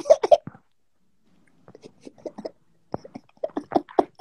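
A man's voice trailing off, a second-long pause, then quieter scattered talk that grows louder toward the end.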